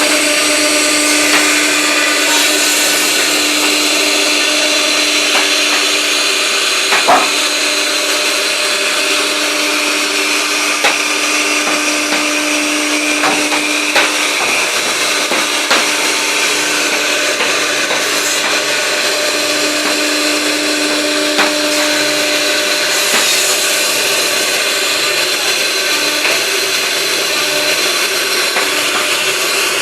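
A CNC router runs steadily with a constant high-speed motor whine. A lower hum drops out about halfway and briefly returns, and a few sharp ticks sound through it.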